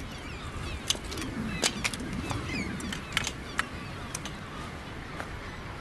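Seabird colony calling, many overlapping cries, with a few sharp clicks or knocks scattered through.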